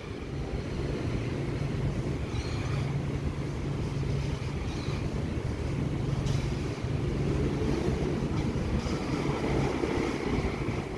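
Sydney Trains Tangara electric train approaching along the track, a steady rumble that grows a little louder in the second half.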